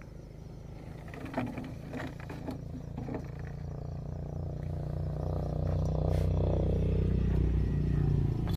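An engine's low, steady hum growing gradually louder, with a few short knocks in the first three seconds.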